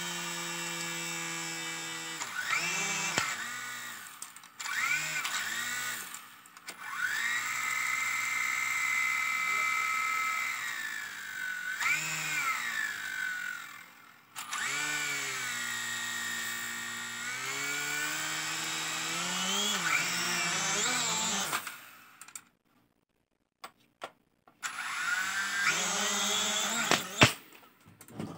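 E88 toy drone's small electric motors whining in uneven bursts, several at different pitches, speeding up, slowing down, cutting out and starting again; the motors are not running together, a malfunction. They stop for a few seconds about three quarters of the way through, then whine again, with a sharp knock near the end.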